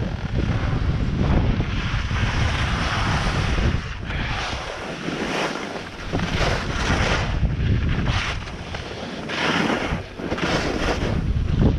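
Wind buffeting the microphone in a heavy low rumble during a downhill ski run, with the skis scraping and hissing over wind-packed snow in a surge at each turn.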